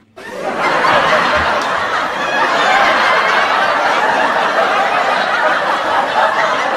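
Laugh track of a crowd laughing together, swelling over the first second and then holding steady and loud.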